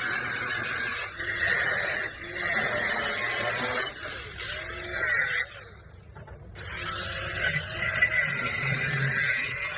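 Electric arc welding: a crackling hiss that runs in stretches, with short breaks and a pause of about a second midway before the arc starts again.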